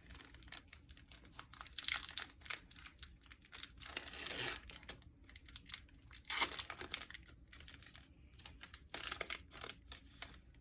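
A foil baseball card pack being torn open and its cards handled: a string of quick crinkles, clicks and tearing, with several longer rustles along the way.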